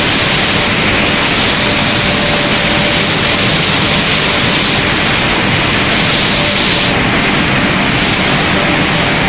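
Snack pellet production line machinery running: a loud, steady mechanical noise with a faint steady whine underneath.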